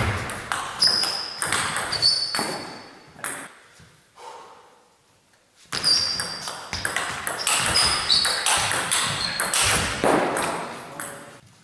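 Table tennis rally: the ball clicks rapidly back and forth between bats and table. There are two runs of hits, with a short pause of about two seconds near the middle.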